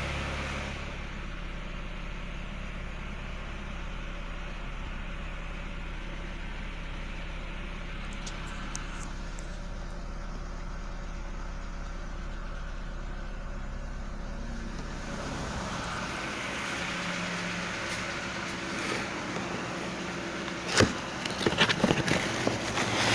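Ford Probe 2.0 engine idling steadily. A few sharp knocks or clicks come near the end.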